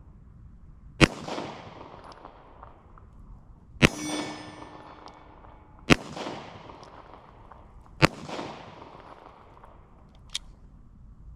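Four single gunshots, about two to three seconds apart, each trailing off in an echo. The second shot is followed by about a second of metallic ringing. A small click comes near the end.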